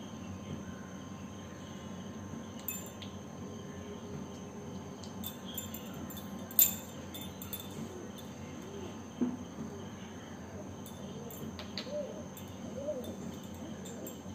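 A steady high-pitched background tone runs throughout, with a few sharp clicks or taps. The loudest tap comes about six and a half seconds in and another a little after nine seconds.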